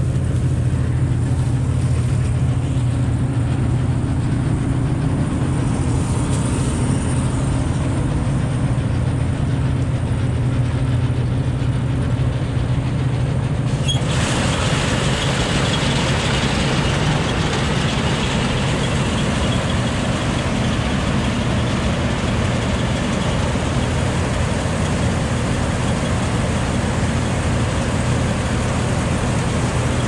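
A John Deere 9670 STS combine's diesel engine runs steadily with a constant low hum. About halfway through, a louder rushing hiss from the machine joins in and holds steady.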